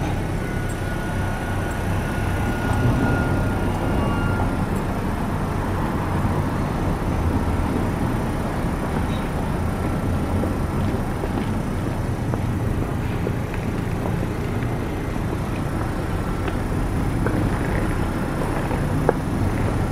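Toei 7700-series tram standing at a platform, its on-board equipment humming steadily, with the footsteps of alighting passengers and a single sharp click near the end.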